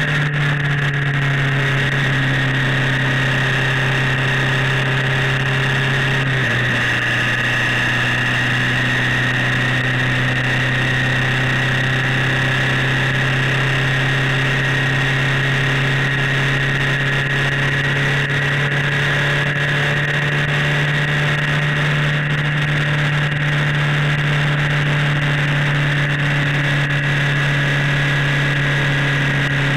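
Motorcycle engine holding a steady drone at cruising speed, its note shifting slightly about six seconds in, over wind and wet-road noise in heavy rain.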